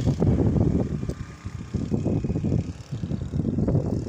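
Gusty storm wind buffeting the microphone: an uneven low rumble that swells and dips, easing briefly around the middle.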